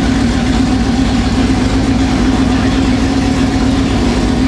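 M5 Stuart light tank's new Chevrolet engines idling steadily, a loud even hum with no revving.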